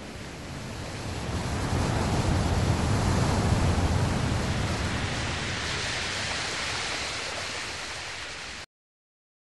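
A steady rushing noise like surf or wind, with no tune or tones in it. It swells over the first couple of seconds, eases off gradually, and cuts off abruptly near the end.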